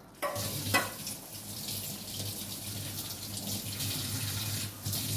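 Water running steadily, as from a kitchen tap, starting just after the beginning, with a brief knock about three-quarters of a second in.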